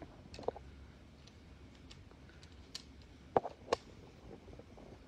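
Quiet room tone with a few scattered light clicks and taps, the loudest two close together about three and a half seconds in.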